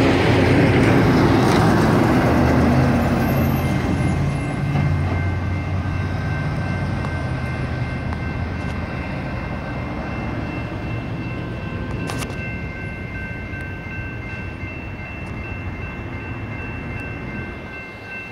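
A crossing's electronic warning bell (a General Signals Type 2) rings steadily through the activation. Early on it is joined by a dump truck's engine pulling across the tracks, which fades over the first several seconds.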